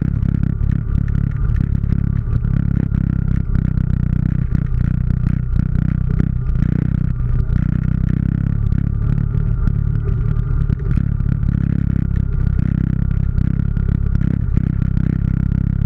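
ATV engine running at a steady, low pace while crawling over a rocky trail, with frequent clatter and knocks from the machine jolting over stones.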